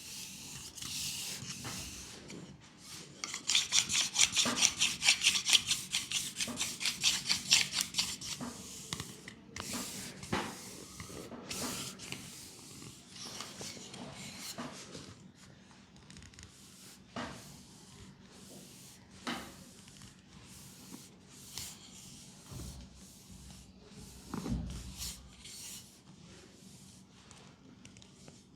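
Rubbing on skin during a leg massage. About three seconds in comes a fast, even run of rubbing strokes, about seven a second, for some five seconds. After that the strokes are quieter, scattered single rubs and brisk swipes.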